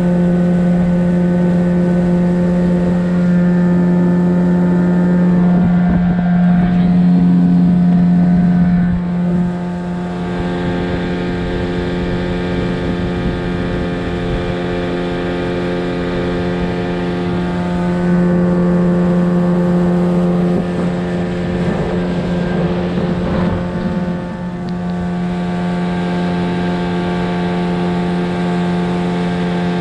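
A boat's motor running steadily under way, a constant droning hum, easing off slightly about nine seconds in and again around the 24-second mark, and picking up a little in between.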